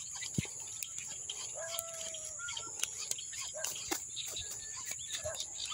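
Rural outdoor ambience: a steady high-pitched insect drone with faint scattered clicks, and a short distant animal call about two seconds in.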